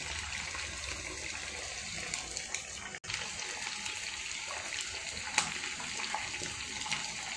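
Tomato-and-chilli sauce sizzling steadily in hot butter in a pot as it is poured in and stirred with a silicone spatula, with a few faint clicks. The sound cuts out for an instant about three seconds in.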